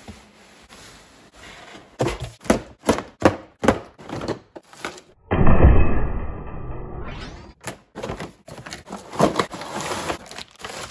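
Cardboard box and packaging being opened and handled: a string of sharp knocks, scrapes and rustles. A loud, low thud comes about five and a half seconds in.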